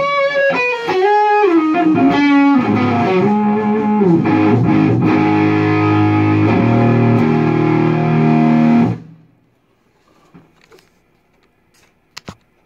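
Electric guitar through a Lone Wolf Audio Left Hand Wrath distortion pedal set to a mid-gain, Marshall plexi-style overdrive. It plays bent lead notes, then a held chord that rings until it is cut off suddenly about nine seconds in, followed by quiet and a few clicks near the end.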